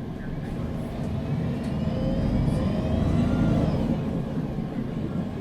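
MAN NG 313 CNG articulated bus heard from inside, its natural-gas engine pulling the bus up to speed: the engine and a faint rising whine grow louder from about a second in, then ease off about four seconds in.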